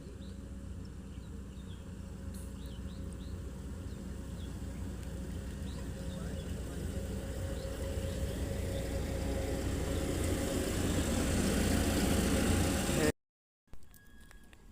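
A vehicle engine running with a steady low hum, growing louder for about thirteen seconds, then cut off abruptly near the end, after which only a fainter hum remains.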